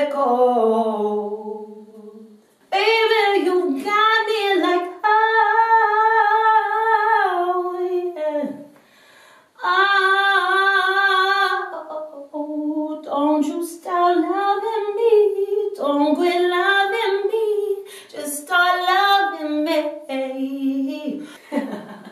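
A woman singing a cappella with no instruments: sung phrases with long held notes and vibrato, broken by two short pauses for breath.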